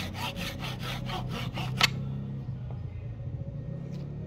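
Fine-toothed hand saw flush-cutting the end of a rosewood axe handle and its wedge at the top of the axe eye: quick back-and-forth strokes, about five a second. The strokes end about two seconds in with a single sharp click.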